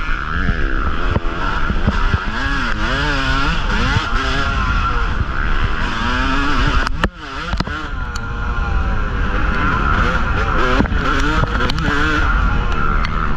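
Yamaha YZ250 two-stroke single-cylinder dirt-bike engine being ridden hard, its revs rising and falling with the throttle. About seven seconds in the engine note briefly drops away, then picks up again, with scattered knocks and clatters over the rough trail.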